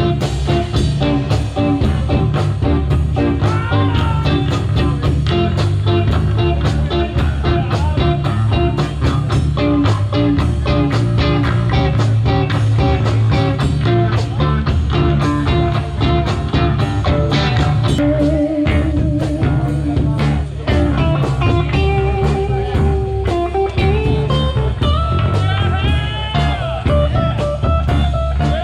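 Live band jamming a blues groove: guitar lines over bass and a steady, quick drum beat.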